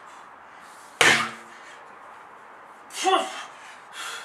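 A 34 kg sledgehammer strikes a large rubber tyre about a second in with a single heavy thud. About two seconds later comes a loud, short grunt of effort from the man swinging it.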